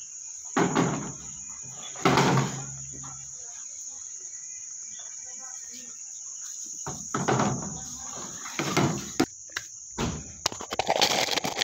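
Crickets chirping in a steady, unbroken high trill, with short bursts of people's voices and a few knocks of handling breaking in, most of them in the second half.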